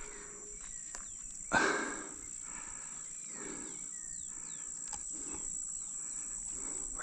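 Outdoor marsh ambience: insects chirping in a steady high-pitched drone, with a few short falling chirps in the middle. A single brief louder noise comes about a second and a half in.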